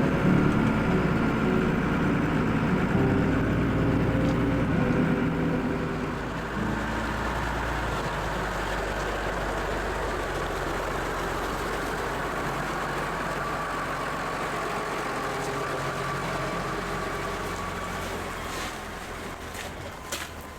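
A motor vehicle's engine running at a steady speed, with music over it for the first six seconds or so. A few sharp knocks near the end.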